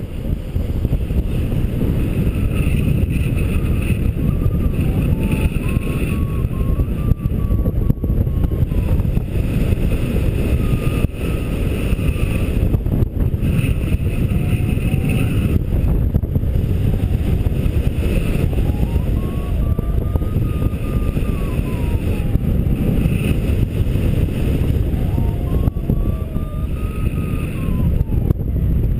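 Strong wind rushing over the microphone in flight under a paraglider. Over it, a variometer beeps in several spells, its pitch rising and falling as the glider gains and loses lift.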